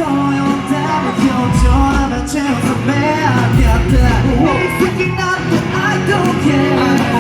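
Live amplified pop music with male group vocals over a heavy bass beat, heard through the PA in a large hall.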